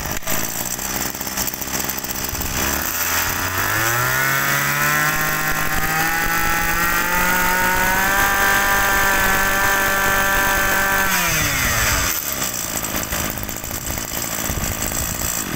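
BigM KC23 (Maruyama) 23 cc two-stroke brush-cutter engine idling, then revved up about three seconds in and held at steady high revs. It drops back to idle about eleven seconds in.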